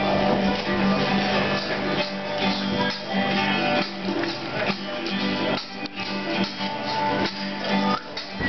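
Acoustic folk band playing an instrumental intro: several acoustic guitars strumming with a mandolin, and a lagerphone's bottle-cap jingles keeping the beat.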